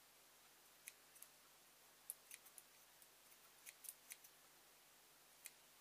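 Scissors snipping through thin fabric strips: about a dozen faint, short snips from about a second in, some in quick pairs.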